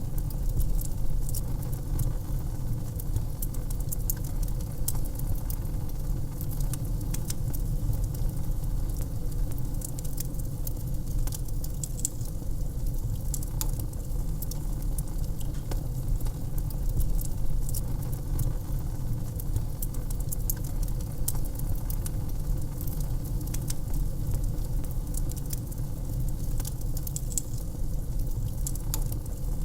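Wood fire crackling in a fireplace: many small sharp pops and snaps at irregular intervals over a steady low rumble.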